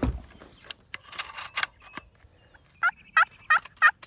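Four quick turkey yelps from a hand-held friction turkey call worked with a striker, evenly spaced at about three a second, each breaking from a higher note to a lower one. Before them come a few sharp clicks and knocks of a door latch and handling.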